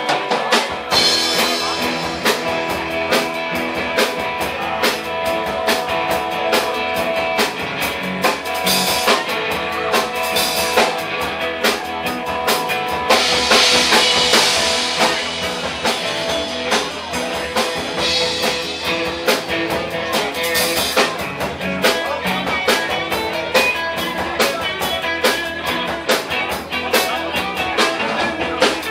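Live rock band playing an instrumental passage: electric guitars over bass guitar and drum kit keeping a steady beat, with cymbal crashes swelling up several times.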